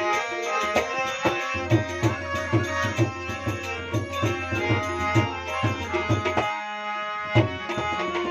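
Instrumental passage of a Gujarati devotional song: a harmonium plays a sustained melody over a steady tabla beat. The drum drops out about six and a half seconds in and comes back about a second later.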